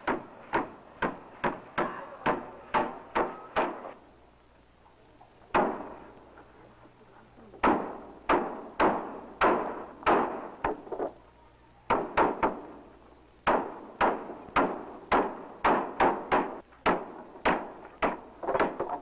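Hammer driving nails into wood: repeated sharp blows about three a second, in runs of several strokes with short pauses between them, the longest pause about four seconds in.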